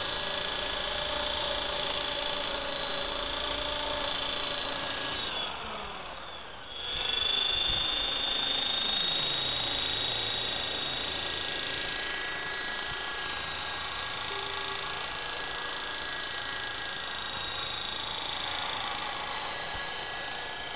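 Electric Belt CP collective-pitch RC helicopter hovering low, with a steady high-pitched whine from its motor and rotors. About five seconds in, the whine falls in pitch and drops away for a second or so, then spools back up and holds steady again.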